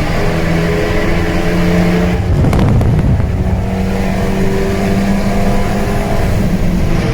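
Sports car engine and exhaust running steadily in a tunnel, with a short loud rush and a couple of sharp cracks about two and a half seconds in, after which the engine note settles at a new pitch.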